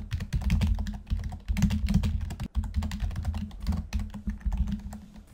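Typing on a computer keyboard: a quick, almost unbroken run of keystrokes, a dull low thump under the clicks, with a brief pause about halfway through.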